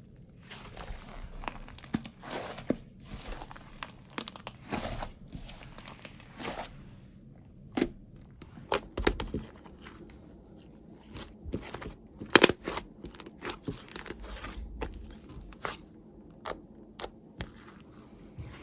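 Clay-mixed slime being handled, giving irregular crackles, pops and tearing sounds.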